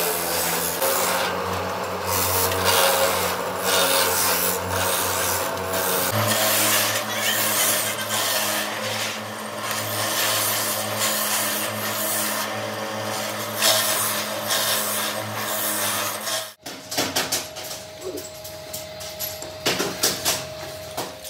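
Brake shoe grinding machine running: a steady motor hum under a harsh, rasping grinding noise as brake shoes on a chain conveyor have their friction linings ground. After a sudden cut near the end come scattered clicks and clinks of metal brake shoes being handled.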